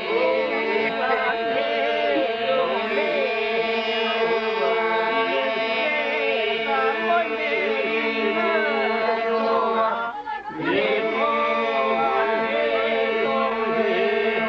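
A group of men's voices singing an Albanian polyphonic folk song: a steady drone is held underneath while the leading voices weave ornamented lines above it. The singing breaks off briefly about ten seconds in, then picks up again.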